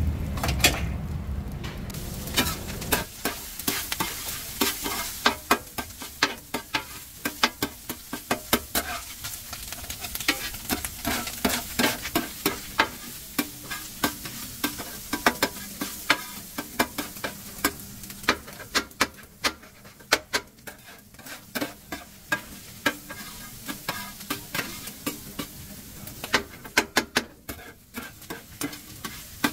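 A metal scraper clacks and scrapes against a steel tray as chopped kokoreç (lamb intestine) is stirred and turned, in many quick irregular taps over a steady sizzle of hot fat. A low rumble runs under the first three seconds.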